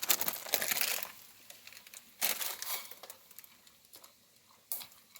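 Intermittent rustling and crinkling with a few light clicks and clinks, from small objects and packaging being handled. The busiest stretch is in the first second, a louder rustle comes a little after two seconds, and a few sharp clicks fall near the end.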